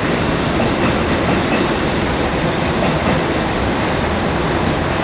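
JR 205 series electric commuter train running into a station: a steady, loud rumble and rush of steel wheels on the rails.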